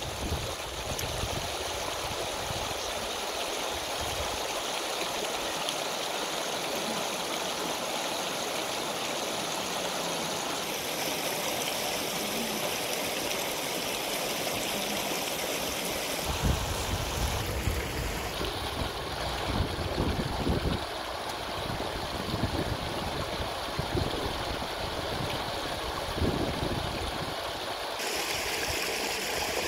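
River water rushing over rocks in shallow rapids, a steady noise. Occasional low thumps come in the second half.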